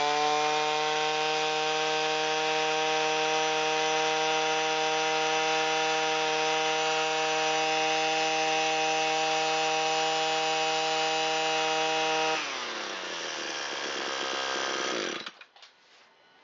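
Echo SRM225 string trimmer's two-stroke engine held at full throttle, screaming steadily at high revs. About 12 seconds in the throttle is released and it drops to a lower speed, then cuts off about 15 seconds in. The mixture is a little on the lean side, by the owner's reading.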